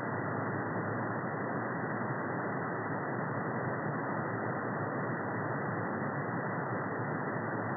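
Steady synthetic pink-type noise, an even rushing hiss cut off at both ends so it has no treble and no deep bass, with no change in level.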